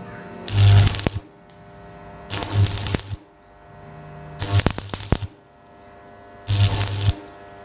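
Old transformer stick (arc) welder striking short tack welds on a moped's steel exhaust pipe: four bursts of arc crackle and buzz, about two seconds apart, with the welder's steady hum in between.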